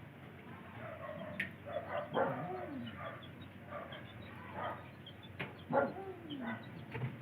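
Farmyard animal calls: several short, irregular calls, two of them falling in pitch, over a low steady hum.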